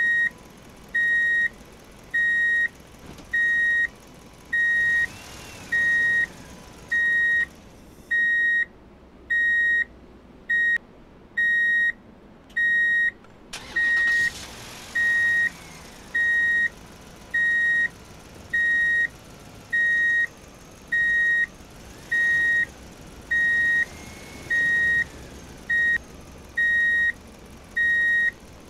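Electronic reversing-style warning beeper sounding a steady high-pitched beep a little under once a second. Faint background noise sits between the beeps and drops away for about five seconds near the middle.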